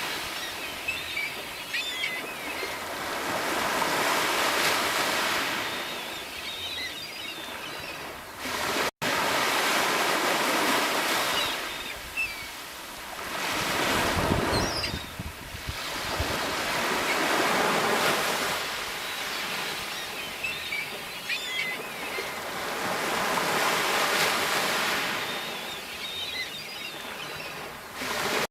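Sea waves breaking and washing ashore, the surf swelling and ebbing every few seconds, with a momentary break in the sound about nine seconds in.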